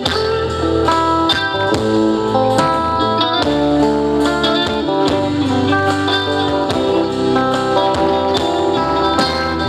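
A live band plays an instrumental break between sung verses of a Thai pop love song: a guitar-led melody over bass and chords.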